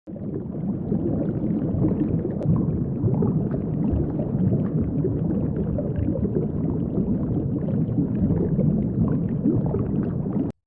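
An animal's low, rough rumbling call held continuously for about ten seconds, starting and cutting off abruptly.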